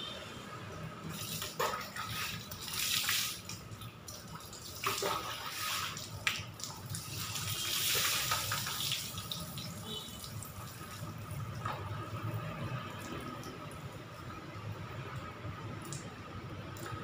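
Water poured from a plastic dipper over a person's head and body, splashing onto a wet concrete floor. There are several short pours in the first half and a longer, louder splash about eight seconds in, then quieter trickling and dripping.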